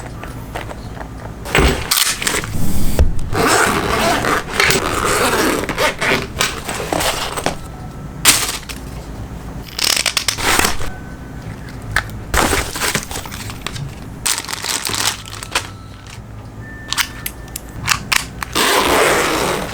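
Packaging of an LED panel light being handled and opened: crackling, scraping rustles broken by sharp clicks and knocks at irregular intervals.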